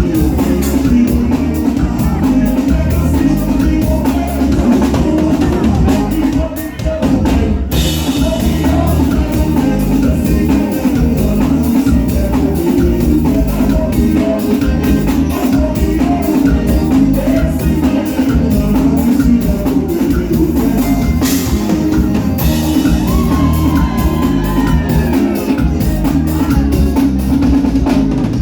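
Forró music playing loudly, with a drum kit keeping a steady beat and a short dip about seven seconds in.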